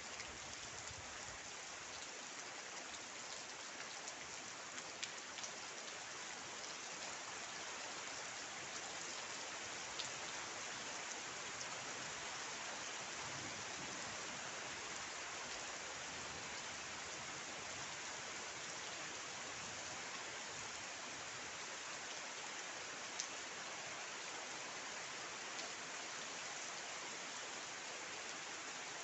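Steady rain falling, an even hiss with a few separate drops ticking sharply now and then.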